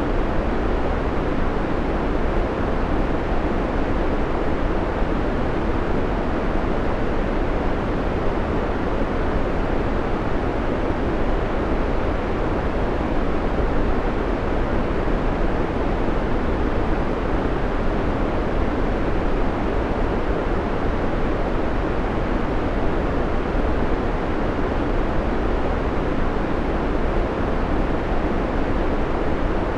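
Steady synthetic white noise: an even, unbroken hiss with most of its weight in the low and middle range.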